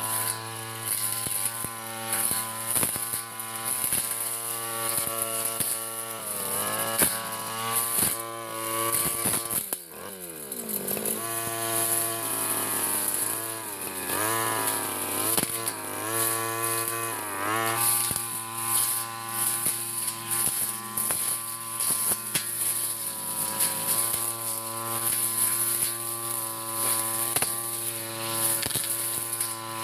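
Backpack brush cutter engine running at high revs while its blade cuts grass, with many sharp ticks as the blade strikes stems and ground. About ten seconds in, the engine drops steeply and then revs back up. Its pitch sags and recovers a couple more times under the cutting load.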